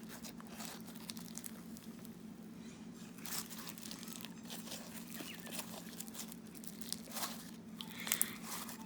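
Crunchy foam-bead slime being squished and stretched by hand, the foam beads crackling and popping in irregular bursts.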